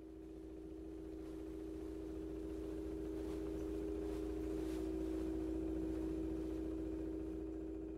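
A steady humming drone of two close, pure tones over a low rumble, swelling slowly and then fading away.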